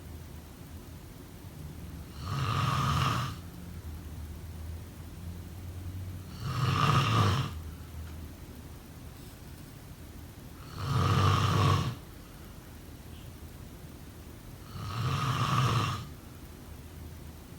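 A person snoring in a steady rhythm: four snores about four seconds apart, each lasting about a second.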